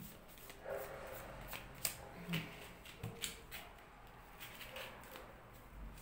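Tarot cards being handled and shuffled by hand: soft, scattered clicks and rustles of card stock.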